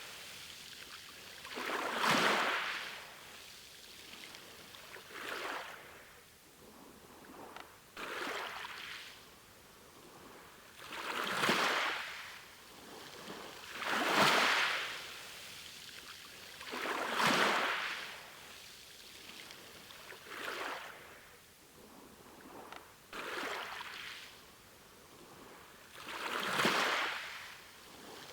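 Small sea waves washing onto the shore one after another, each swelling and fading in about three seconds, nine times over.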